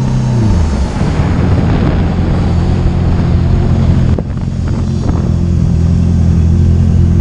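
Honda CBR650 motorcycle's inline-four engine under way: its note drops about half a second in as the revs fall, then runs steadily, with wind rushing over the microphone.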